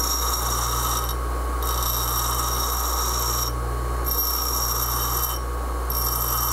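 Grinder motor running steadily while a hardened O1 tool-steel bit is pressed against the grinding wheel in four passes of a second or two each, short gaps between them. Each pass is a high-pitched ringing grind: the relief on the boring bar's cutting tip being ground.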